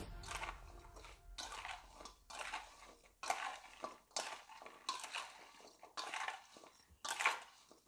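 A metal spoon stirring raw green mango chunks coated in oil and spice paste in a stainless steel bowl: repeated scraping strokes about every half second, as the pieces are tossed against the bowl.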